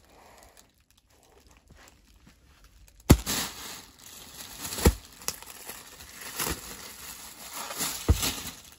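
Clear plastic wrapping crinkling and rustling as folded dress-material pieces are handled, with three sharp knocks about two seconds apart. The first knock is about three seconds in.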